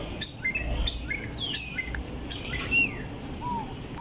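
Birds chirping: a series of short, high calls, each dropping in pitch, with a few lower falling whistles among them.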